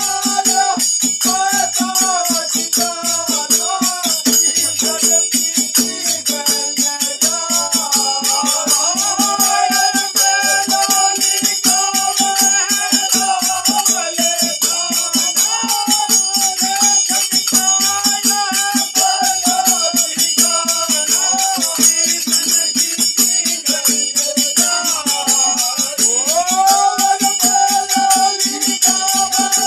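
A group of men singing a fagua, a Holi folk song, to a hand-played dholak drum with a fast steady beat and ringing metal percussion.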